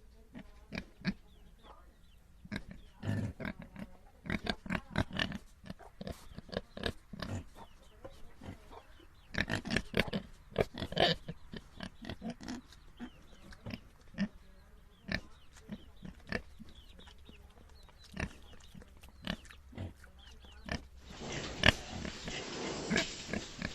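Pigs grunting: many short grunts in irregular clusters, with a busier, louder run of grunts near the end.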